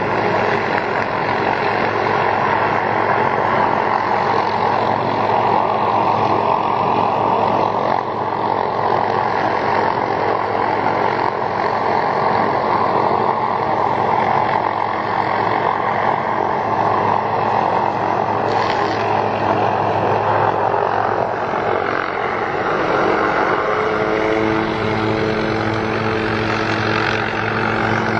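Helicopter hovering: loud, steady rotor and engine noise with a constant low hum in it.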